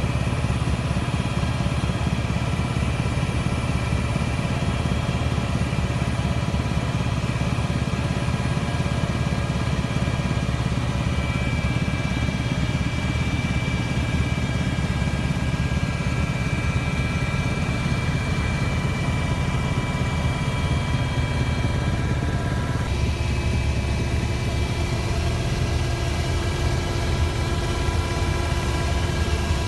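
Steady engine drone heard inside an aircraft cabin, with several steady whining tones over a deep rumble; the mix of tones shifts slightly about two-thirds of the way through.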